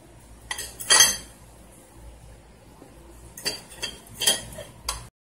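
Cutlery clinking against a plate while eating noodles: a few scattered clinks, the loudest about a second in and a cluster of lighter ones in the last two seconds. The sound cuts off abruptly just before the end.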